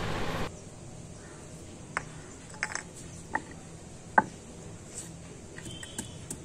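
Scattered sharp knocks and crunches as a stone pestle (nora) comes down on garlic cloves on a flat stone grinding slab (shil), the loudest about four seconds in.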